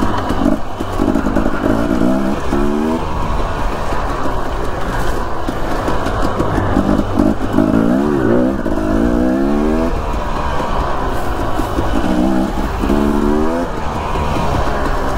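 Dirt bike engine running under changing throttle. Its note rises in several short revs, over a steady rush of noise.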